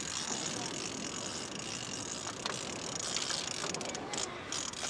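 Heavy conventional fishing reel being cranked on a snagging rod, a steady mechanical gear ratcheting while line is reeled in.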